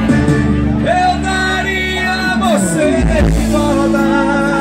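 Live sertanejo band playing loudly, with a sung melody over steady held chords and a bass line, heard from among the audience.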